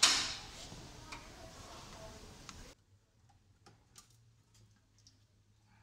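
A loud clank that fades over about half a second, then, after an abrupt drop in the background noise, scattered faint clicks and taps from hand tools working on an engine.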